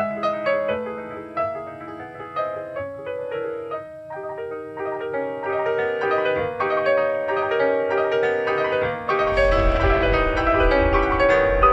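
Piano with symphony orchestra playing classical music: quick running passages on the piano, with fuller, louder orchestral sound coming in with a strong bass about nine seconds in.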